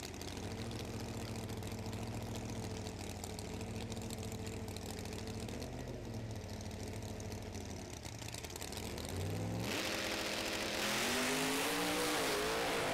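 Top Doorslammer drag cars' V8 engines idling steadily on the start line. About nine and a half seconds in, the engines rev up sharply and launch, climbing in pitch and getting louder as the car accelerates down the strip.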